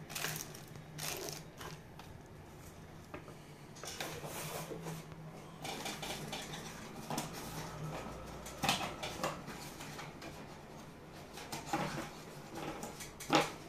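Handling noise on a desk: plastic accessory bags rustling, with small items clicking and knocking at irregular moments. The sharpest knocks come near the middle and just before the end, over a faint steady low hum.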